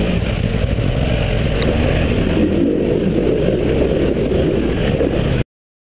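Quad bike (ATV) engine running as it rides along, heard from a camera mounted on the machine, a steady rough rumble; it cuts off suddenly about five and a half seconds in.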